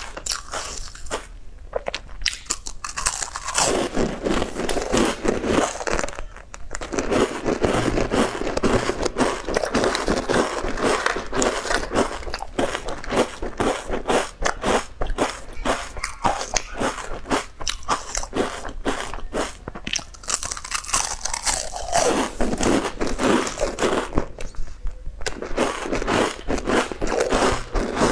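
Crisp round ripple-patterned biscuits being bitten and crunched close to a lapel microphone, a dense run of crunches and chewing broken by a few short pauses between bites.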